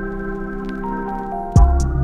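Background music: held organ-like chords, then about one and a half seconds in a quick downward sweep drops into a heavy bass beat with evenly ticking hi-hats.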